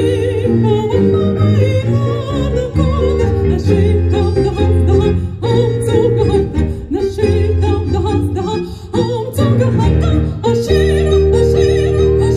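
A woman singing with strong vibrato into a microphone, accompanied by violin, cello and piano.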